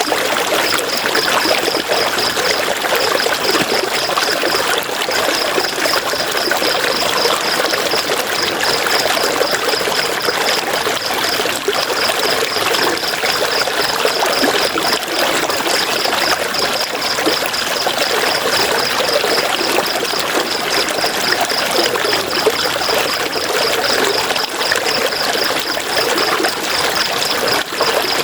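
River water rushing and splashing over rocks in a steady flow. A high, rapidly pulsing trill runs over it, breaking off briefly a few times.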